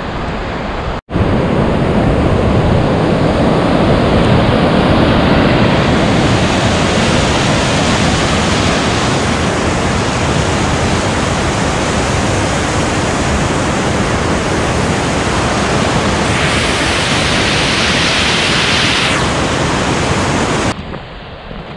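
Loud, steady rushing noise that cuts in after a brief dropout about a second in and drops away near the end.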